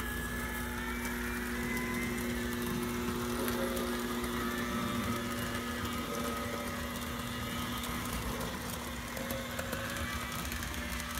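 HO scale model trains running around the layout: a steady motor hum and whine that wavers slightly in pitch, with light scattered clicks from the wheels on the track.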